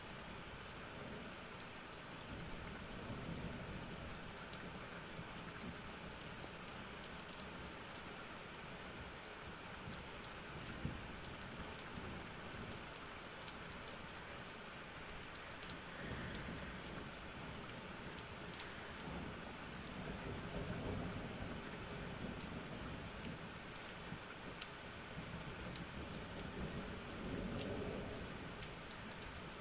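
Steady hiss of rain with scattered raindrops ticking close by, and low rumbles of thunder swelling up a few times, strongest about two-thirds of the way through and again near the end.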